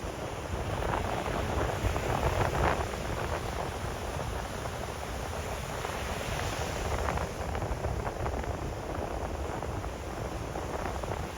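Sea of Japan waves breaking and washing ashore in surges, the strongest about two seconds in and another around seven seconds, over a steady low rumble of wind on the microphone.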